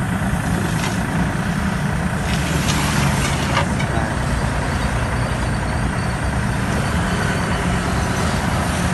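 IHI 35GX-3 mini excavator's diesel engine running steadily at idle while the hydraulics raise the boom and bucket. The engine holds its speed under the hydraulic load without bogging down or stalling, which the operator takes as the sign of a machine in good working order.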